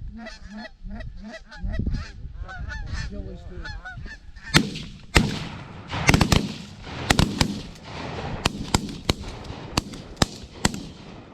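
Geese honking as a flock comes in, then from about four seconds in a rapid volley of about a dozen shotgun blasts from several hunters firing together.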